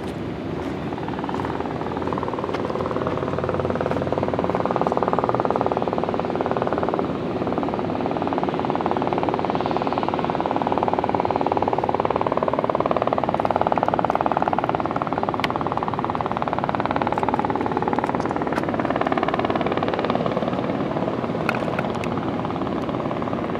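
Aircraft engine noise: a steady roar that builds over the first few seconds, then holds.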